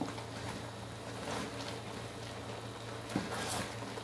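Wooden spatula stirring chunks of chicken, potato and carrot in a steaming aluminium pot of simmering milk sauce, with a couple of faint scrapes about three seconds in, over a steady low hum.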